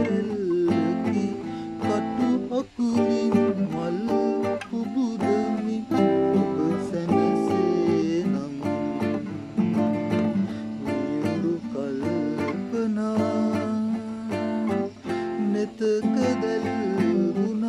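Nylon-string classical guitar strummed in a steady rhythm of chords, with a man singing along over it.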